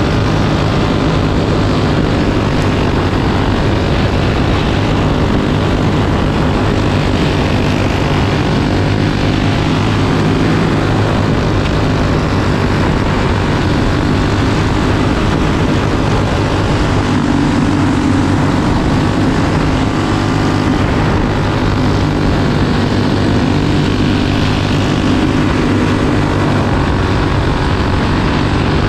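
Onboard sound of a racing kart's flathead engine running hard under race conditions. Its pitch rises and falls a little with the throttle through the corners, over a steady rush of noise.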